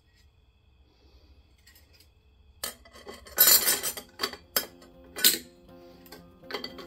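Transmission clutch plates clinking and clattering together as they are lifted by hand out of a 4L80E's direct clutch pack. It is near-quiet for the first couple of seconds, then comes a run of metallic clinks, the loudest about halfway through, and one more clink near the end.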